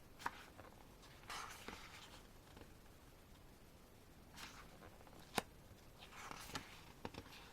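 Pages of a photobook being turned by hand: a few soft paper swishes, with light taps and clicks in between.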